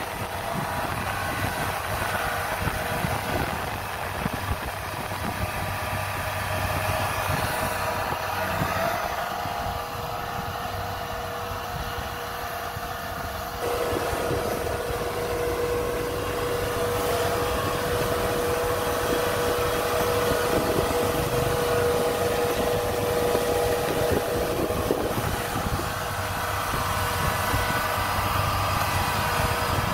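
Kubota DC-70 combine harvester's diesel engine running steadily as the machine travels on its crawler tracks. About halfway through the sound gets a little louder and a steady whine joins in.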